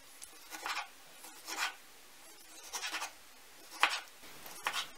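Knife slicing through tomatoes on a wooden cutting board, dicing them into small cubes: about five short cutting strokes, roughly one a second.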